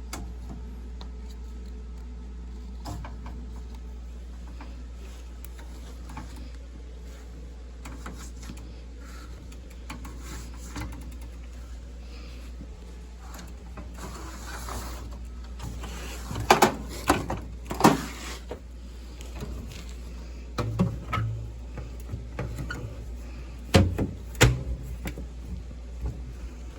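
A steady low hum, with a run of sharp knocks and clatters in the second half, the loudest ones coming in two groups.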